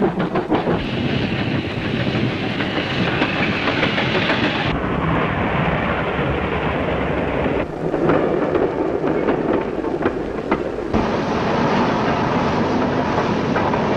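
Pannier tank steam locomotive hauling a train of loaded coal wagons: continuous rumbling and clattering of wheels on rails. The sound changes suddenly about five, eight and eleven seconds in.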